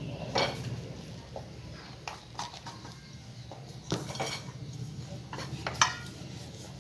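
Scattered light knocks and clinks of kitchenware being handled, a stainless steel bowl, a rolling board and a rolling pin, as a ball of dough is portioned and set down for rolling. A faint low hum runs underneath.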